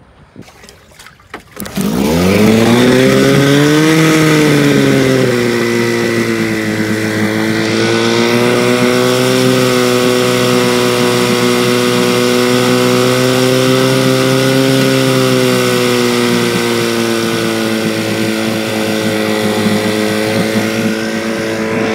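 1968 Evinrude Fastwin two-cylinder two-stroke outboard motor starting about two seconds in, revving up and then settling into a steady run with its lower unit in a water-filled test drum. It is running well after a carburetor rebuild and fuel pump replacement.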